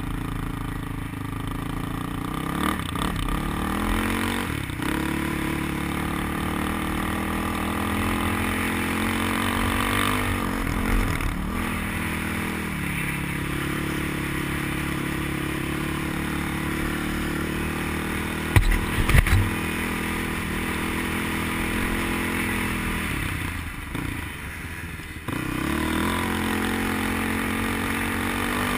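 Engine of an off-road vehicle running under throttle, its pitch rising and stepping as it accelerates and shifts gears. A few sharp knocks come about two-thirds of the way through. Near the end the engine eases off for a moment, then picks up again.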